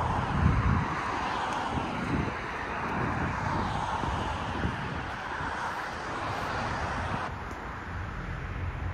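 Steady road traffic noise: the even hiss and low hum of passing cars.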